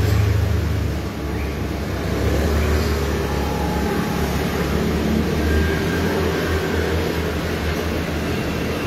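A machine running with a steady low rumble.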